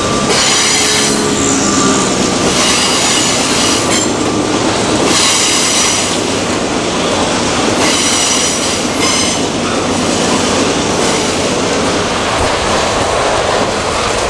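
Freight train's loaded covered hopper wagons rolling through a curve. Their steel wheels squeal high against the rails in repeated spells over a steady rolling rumble.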